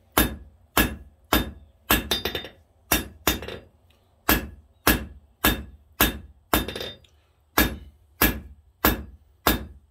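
Hand hammer striking red-hot 3/8-inch square mild steel on an anvil, drawing out a taper: a steady run of sharp blows, a bit under two a second, each with a short metallic ring. A few blows come in quick doubles, and there is a brief pause a little before halfway.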